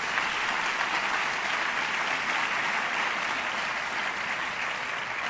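Audience applauding steadily, welcoming a speaker who has just been introduced.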